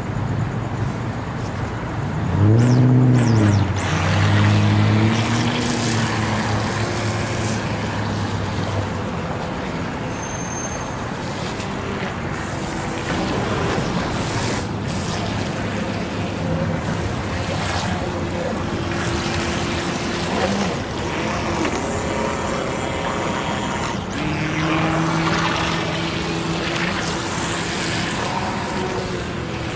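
Brushed electric motor of a radio-controlled boat whining, its pitch rising and falling in short throttle bursts, over a constant wash of road traffic.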